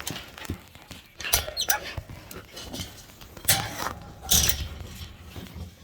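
About four sharp knocks and clanks, the last with a brief ring, over the shuffling of dogs moving about.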